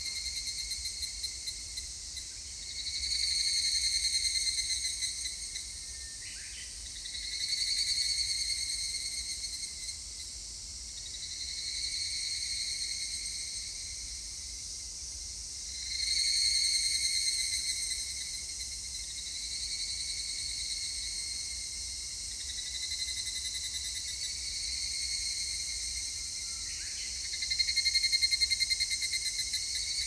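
Several higurashi (evening cicadas, Tanna japonensis) calling in chorus: fast pulsing trills that swell and fade in overlapping phrases of a few seconds each, the loudest near 4 s, 8 s, 16 s and 28 s.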